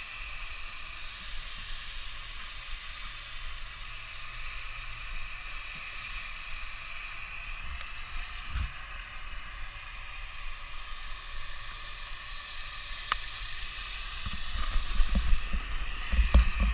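Steady muffled hiss of wind and slope noise on a body-mounted action camera, with a single sharp click late on. In the last few seconds a louder rumble with low thumps as the snowboard starts sliding over packed snow.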